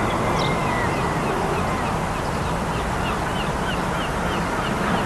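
Steady outdoor background rumble, with a bird giving a run of short, evenly repeated chirps, about three a second, starting about a second and a half in.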